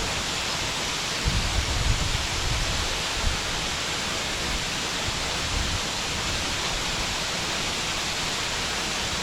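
Hannya Falls waterfall in Nikko: a steady rush of falling water, with a few brief low rumbles about one to three seconds in and again around five and a half seconds.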